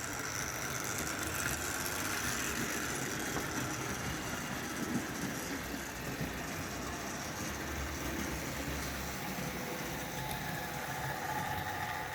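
Hornby OO-gauge model of an Ivatt class 2 locomotive running along the track: the steady whirr of its small electric motor and the rattle of wheels on rail, with a faint motor whine.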